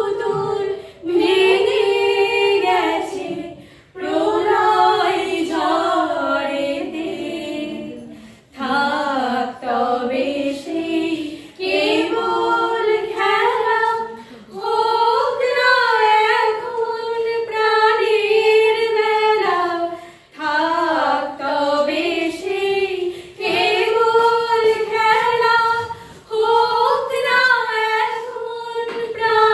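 A small group of women singing a song together without accompaniment, one melody in phrases with short breaks between them.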